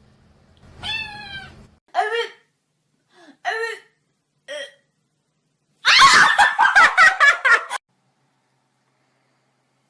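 A cat meowing four short times, followed by about two seconds of loud, rapid, chopped cries.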